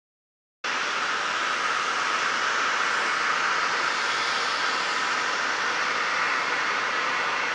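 Steady, even rushing background noise on a cruise ship's upper deck, cutting in suddenly after silence about half a second in and holding level throughout.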